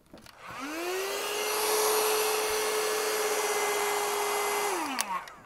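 Electric heat gun running. Its fan motor spins up to a steady whine over the rush of hot air blowing onto a heat-shrink wire splice, then it is switched off with a click near the end and winds down.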